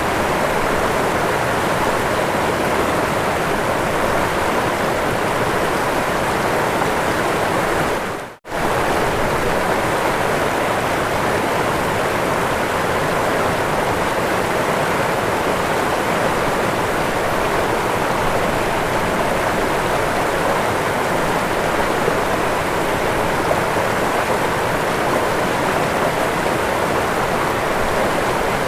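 Waterfall: a steady, dense rush of falling water. It drops out for a split second about eight seconds in, then carries on.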